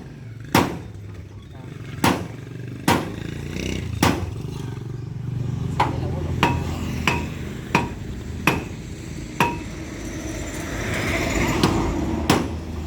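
About a dozen sharp metallic clanks at irregular intervals, like steel being struck with a hammer, some ringing briefly, over the steady low hum of an engine running.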